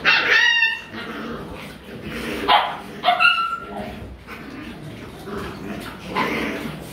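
Rottweiler puppies play-fighting, yelping and barking at each other. There is a loud yelp right at the start, more calls about two and a half to three and a half seconds in, and another near the end.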